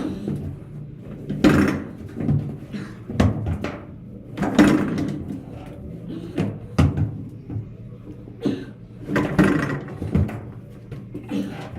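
Refrigerator strapped to a hand truck thumping down a flight of stairs, one step at a time: a series of heavy, irregular bumps, roughly one a second.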